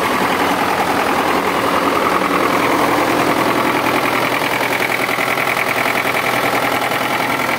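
DT-75 crawler tractor's SMD diesel engine idling steadily with an even, rapid beat.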